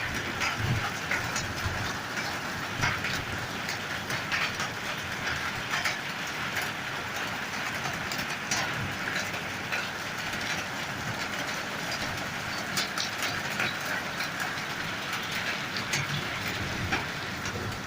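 Steady rain falling: a constant hiss with many sharp drips and taps scattered through it.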